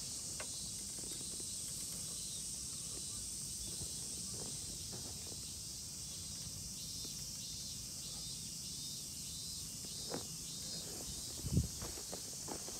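Steady high-pitched chorus of insects over a low outdoor rumble, with a few faint clicks. A dull thump sounds near the end.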